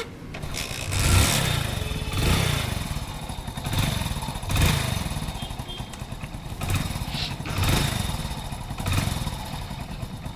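Hero Splendor's single-cylinder four-stroke engine running, blipped on the throttle about seven times. It runs without the earlier clattering, its tappet clearance freshly set after the tappets were found too loose.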